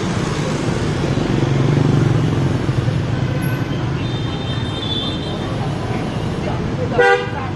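Busy city street traffic: motorbike and car engines running in a steady rumble, with a faint horn about four seconds in and a short, loud horn honk near the end.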